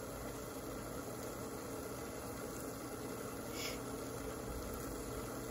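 Portable induction cooktop running at full power with a steady hum and hiss, as water in a stainless steel saucepan heats just short of the boil, small bubbles forming on the pan's bottom.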